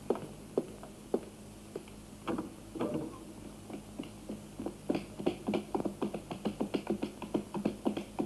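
Hard steps clattering on stone paving: a few scattered knocks, then from about five seconds in a quick, even run of about five steps a second.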